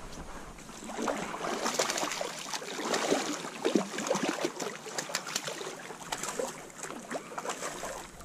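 A hooked bass thrashing at the water's surface beside a kayak, a string of irregular splashes.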